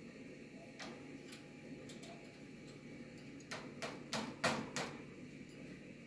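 African grey parrot's beak tapping and nibbling at the phone camera: a few faint clicks, then a quick run of about five louder taps a little past halfway.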